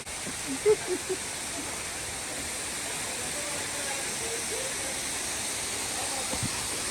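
Steady rush of a waterfall. A few brief, distant voices can be heard about a second in.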